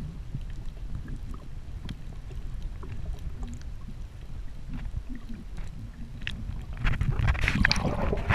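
Muffled underwater noise heard through an action camera's waterproof housing: a steady low rumble with scattered faint clicks. From about seven seconds in it turns to louder splashing and bubbling as the camera breaks the surface.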